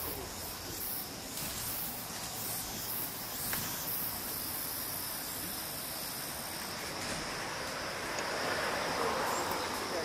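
Outdoor ambience: steady high-pitched insect chirring over a continuous background hiss.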